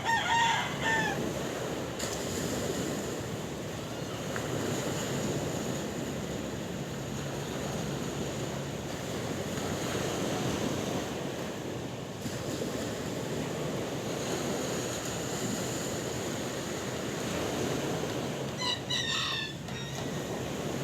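Sea waves washing steadily with wind. A short pitched animal call sounds right at the start and another near the end.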